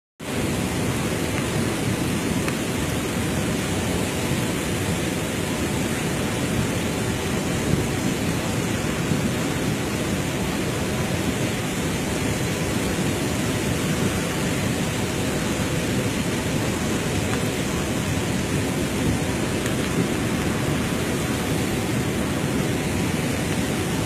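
The Ganga in monsoon flood: a swollen, silt-laden river rushing past in a steady, unbroken, deep rush of water.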